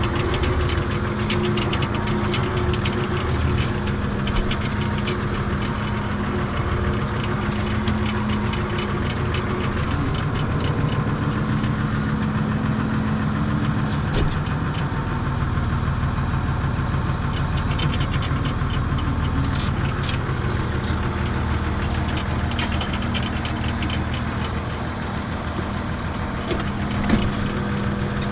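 Renault farm tractor's diesel engine running, heard from inside the cab while the front loader is worked; its note shifts about halfway through, with a couple of sharp clunks.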